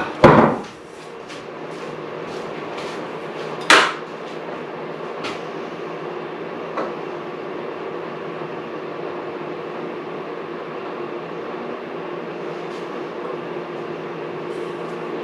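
Electric drill running steadily as it bores a deep hole into an oak slab, a continuous motor hum. A sharp knock comes right at the start and another about four seconds in.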